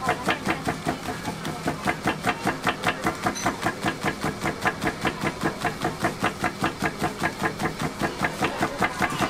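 Electric motor-driven pounding press hammering its plunger down on a thin sheet of food over a roller: a steady, rhythmic mechanical knocking of about six strokes a second over a constant motor hum.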